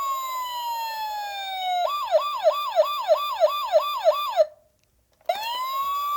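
Electronic police car siren cycling through its patterns: a held wail that slides slowly down in pitch, then a rapid yelp of about eight quick whoops. It cuts out for about half a second near the end, then winds back up into a held wail.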